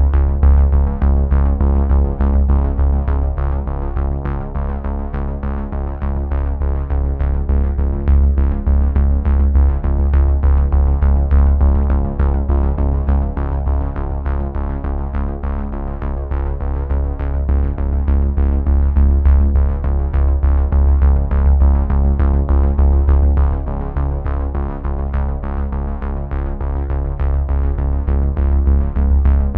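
Background electronic music: synthesizer chords over a heavy bass line and a steady programmed beat, starting abruptly from silence.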